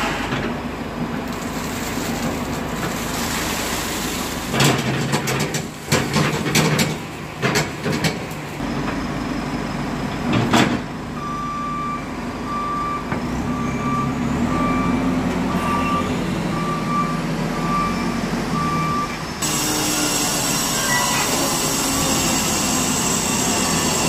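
JCB backhoe loader's engine running as the front bucket empties wet concrete, with a run of sharp clanks and knocks about five to eight seconds in and one more near eleven seconds. Then its reversing alarm beeps about once a second as the machine backs away.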